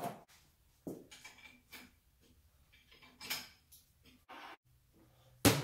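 Metal parts and tools being handled on a surface grinder: scattered light clinks and knocks about a second apart, ending in two loud sharp knocks.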